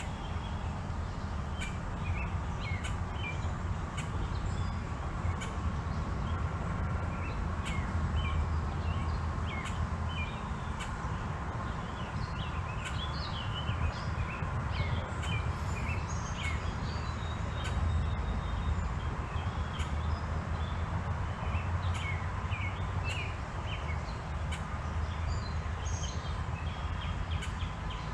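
Outdoor ambience: small birds chirping again and again over a steady low rumble.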